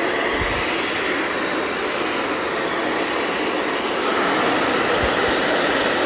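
Handheld hair dryer running steadily, blowing a constant rush of air, a little louder from about four seconds in.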